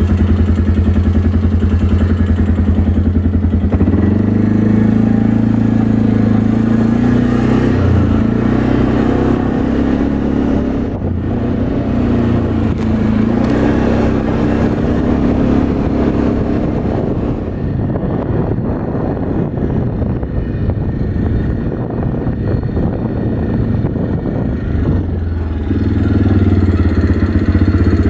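Quad bike (ATV) engine idling steadily for a few seconds, then pulling away along a dirt track, its note rising and falling with the throttle, and settling back to a steady note near the end.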